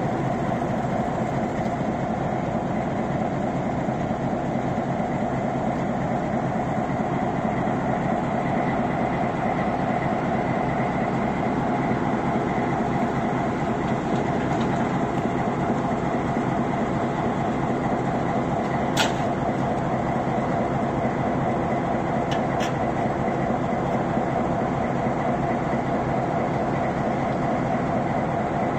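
Diesel switcher locomotive B&O 8408's engine running steadily at close range. A sharp metallic click comes about two-thirds of the way through and another a few seconds later.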